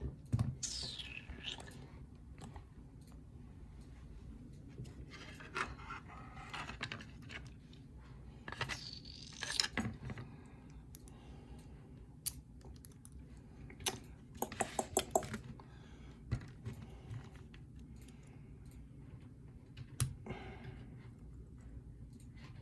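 Small metallic clicks and clinks from a mortise lock cylinder being handled and taken apart by hand, with a quick run of clicks partway through.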